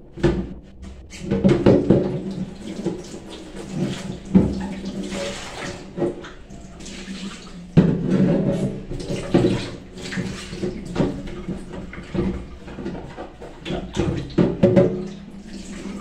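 Water running and sloshing in a stainless steel sink as a clear plastic refrigerator drawer is scrubbed and rinsed, with sharp knocks as the drawer is handled, loudest about four and eight seconds in.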